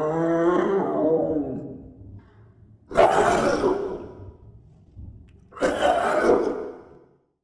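Animal roars: a drawn-out pitched growl, then two rough roars about two and a half seconds apart, each dying away.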